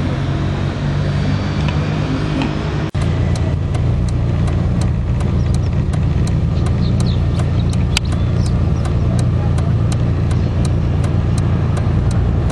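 A steady, loud low rumble. After a brief dropout about three seconds in, a regular quick ticking of about three ticks a second runs over it.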